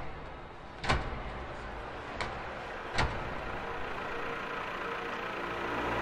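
Sound-effect track for an animated excavator: sharp hits about a second apart over a steady low mechanical hum that slowly swells toward the end.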